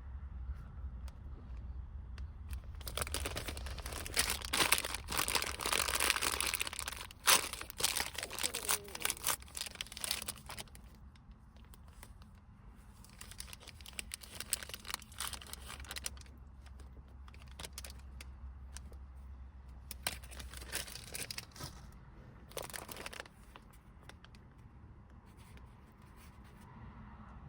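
Crinkling and tearing sounds, like a wrapper being opened. There is a long stretch of them a few seconds in, then two short bursts later. A low steady hum lies underneath.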